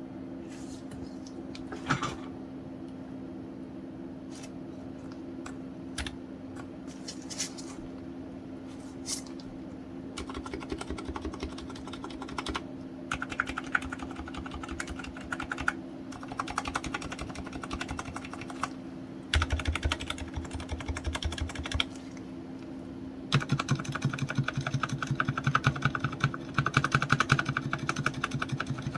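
Typing on a Hansung TFG ART Wireless rubber-bodied mechanical keyboard with silent red (low-noise linear) switches and PBT keycaps. The keystrokes are very quiet: a few single presses at first, then bursts of fast typing from about ten seconds in, densest near the end. A steady low hum runs underneath.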